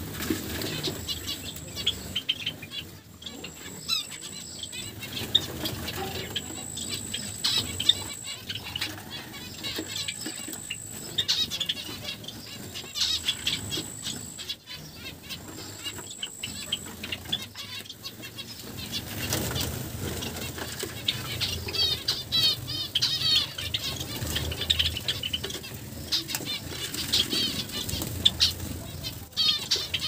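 A mixed aviary of Java sparrows, zebra finches, Gouldian finches and Bengalese finches chirping and calling over one another, with wings flapping as birds fly about. A thin, very high steady tone comes and goes in roughly one-second stretches through the first half, and rapid trilled song phrases come in the second half.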